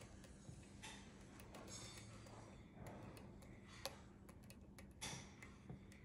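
Faint, irregular clicks and short scrapes of a hook pick working the pins inside a Russwin Emhart lock cylinder held under a tension wrench, over a low steady hum.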